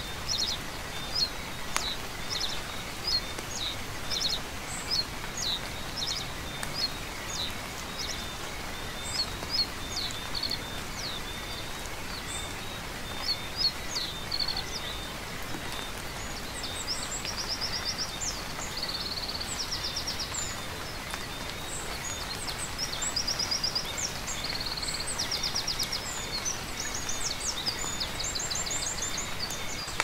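Steady rain hiss with songbirds calling over it: sharp high chirps, one after another, through the first half, then fast high trills from about halfway on.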